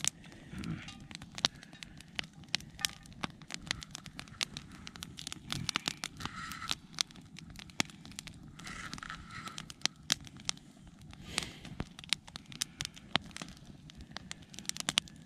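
Moose meat and fat frying in a cast-iron skillet over a wood fire, the fat rendering: sharp, irregular crackling and popping, several pops a second throughout.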